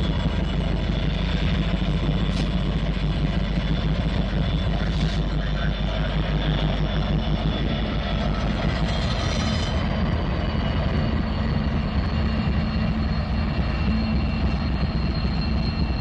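Norfolk Southern GE diesel-electric locomotives, including AC44C6M 4233, running close by with a steady low engine drone. A thin, high, steady whine joins about ten seconds in.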